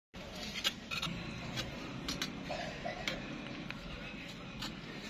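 Scattered light clicks and taps of hand masonry work, a trowel on mud-mortared bricks and a metal arch form being handled, over a steady background hiss.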